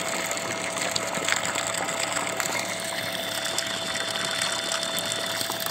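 Engine-driven water pump running steadily, with water gushing out of its outlet pipe onto sand.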